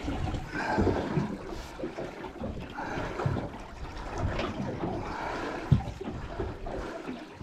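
Water lapping and trickling against the hull of a small aluminium fishing boat, with irregular low knocks and bumps.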